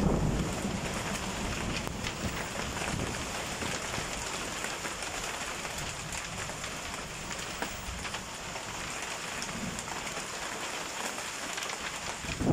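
Hail falling steadily: a dense, even patter of hailstones striking paving tiles and foliage. A low rumble of thunder is fading away during the first second.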